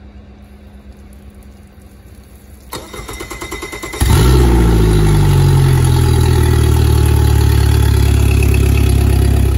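An engine being started: a starter cranks for about a second, then the engine catches and runs loudly and steadily.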